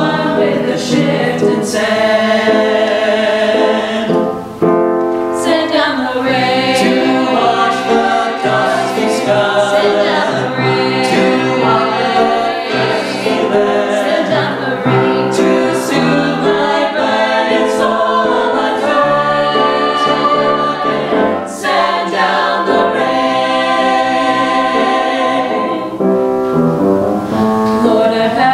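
A small mixed vocal ensemble of women's and men's voices singing a choral piece in parts, with brief breaks between phrases about four seconds in and again near twenty-one seconds.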